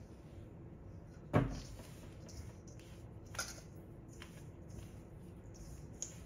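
Hand rubbing and pressing a crumbly flour mixture in a stainless steel bowl, with a sharp knock about a second and a half in and a lighter one about two seconds later.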